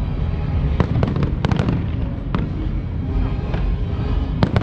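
Aerial fireworks display: a continuous low rumble of bursts, with clusters of sharp crackling reports about a second in and again near the end.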